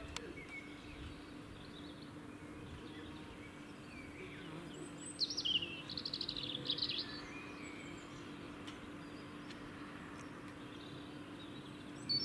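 Songbird chirping faintly, with a quick run of high chirps about five seconds in and a few scattered calls. A steady faint low hum runs underneath.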